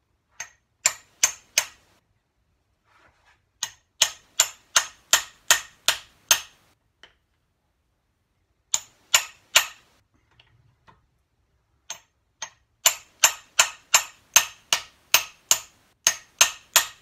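A hammer striking a hand impact driver set to undo a screw in the primary case of a BSA A70L engine. The sharp metallic blows come in bursts, about two or three a second, and each has a bright ring. The longest run, about a dozen blows, comes near the end. The screw is tight and does not come undone.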